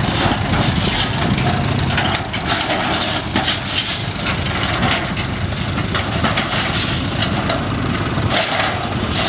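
Farm tractor engine running steadily at low speed.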